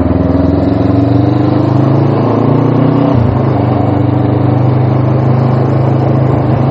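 Suzuki GS500's air-cooled parallel-twin engine running while the motorcycle is ridden. The note holds steady, then changes abruptly about three seconds in and settles again.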